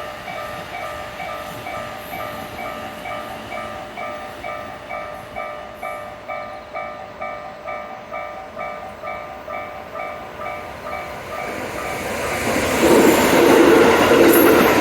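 Japanese railway level-crossing alarm bell ringing a rapid, even ding a little over twice a second, while the crossing is closed. About twelve seconds in, a train comes through and its loud rumble rises over the bell.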